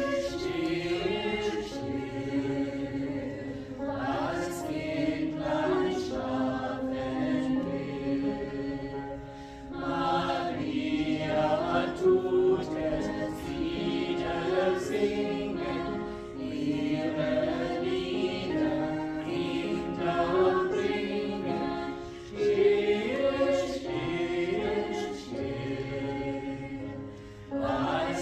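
A group of voices singing a hymn together in several parts, in phrases of a few seconds with short breaks for breath between them.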